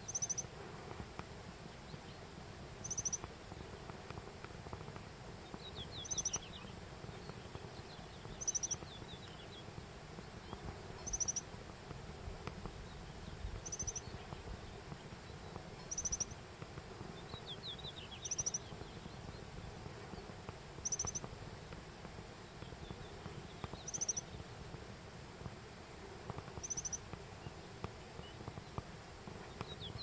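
Japanese accentor giving its breeding-season call note, a short high trilled "chiririri" repeated eleven times, about every two and a half seconds.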